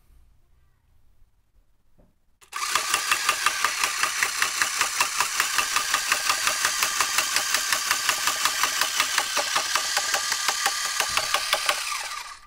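Electric drill motor spinning an eccentric rotor arm weighted with a steel bolt, shaking the wheeled plywood test cart so that it creeps along by vibration: a loud, steady machine clatter that pulses about four to five times a second. It starts suddenly about two and a half seconds in and stops near the end.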